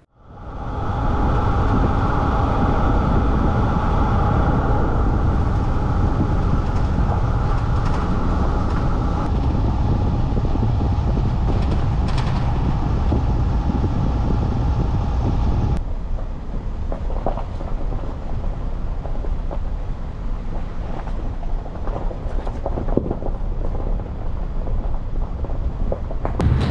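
Mercedes Sprinter van on the move: a steady engine and road rumble that fades in at the start. About sixteen seconds in it turns to a somewhat quieter rumble with scattered crunches of tyres on a gravel road.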